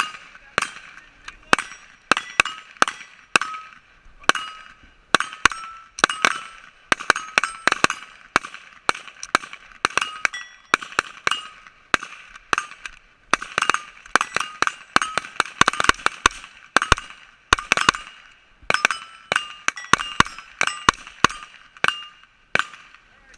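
Rifles firing rapidly and irregularly, several shots a second, during rifle reload drills. Each shot is followed by a short metallic ring.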